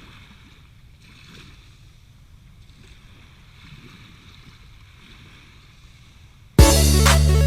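Faint wind and water noise, then background music with a steady beat cuts in loudly near the end.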